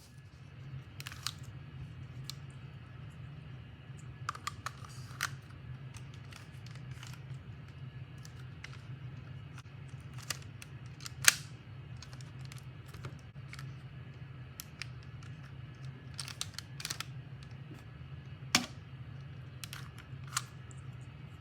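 Lego brick pistol model being handled, with scattered irregular plastic clicks and taps and two louder clacks, over a steady low hum.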